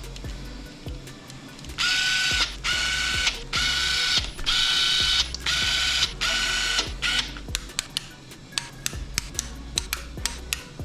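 Ratchet wrench being worked on engine bolts: about six quick back-and-forth strokes of dense ratcheting clicks, then slower single clicks near the end.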